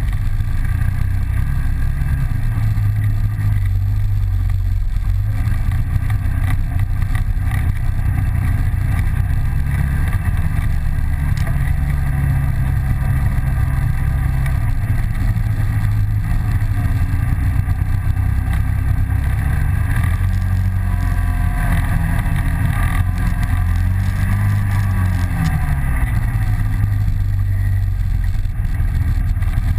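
ATV engine running under way on a dirt track, its pitch rising and falling with the throttle. There is a brief rev up and back down near the end.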